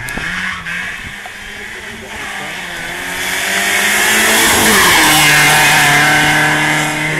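BMW E30 3 Series rally car accelerating hard out of a hairpin, its engine revving up and growing louder as it comes close, then passing with a hiss of loose gravel. The engine note drops as it goes by, about four and a half seconds in.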